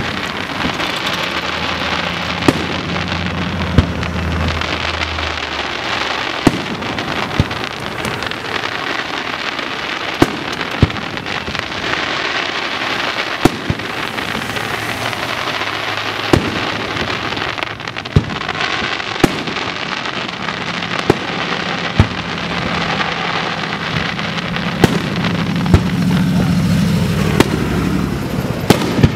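Aerial firework shells bursting: sharp bangs at irregular intervals, about twenty over the stretch and often a second or two apart, over a steady rushing hiss.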